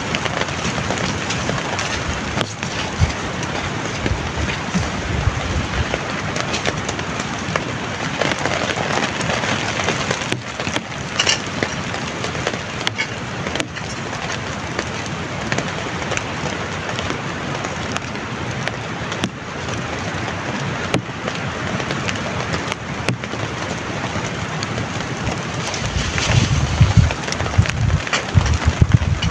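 Heavy rain falling steadily, a dense even hiss, with a louder low rumble of wind gusts on the microphone near the end.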